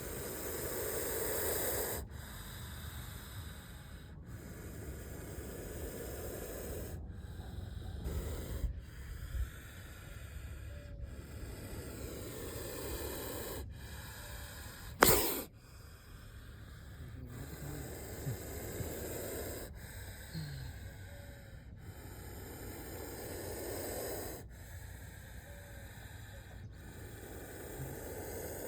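A snake hissing over and over, long breath-like hisses that swell and fade every two to three seconds, with one sharp knock about halfway through.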